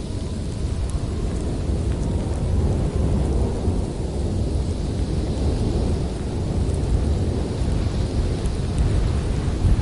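Blizzard wind blowing hard and steadily, a deep continuous rumble with a thinner hiss above it that swells and eases slightly.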